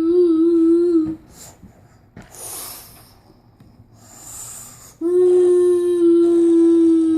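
A child's voice holding a long, steady humming tone as a vocal sound effect, stopping about a second in. Two short breathy exhalations follow, then a second long steady tone starts about five seconds in.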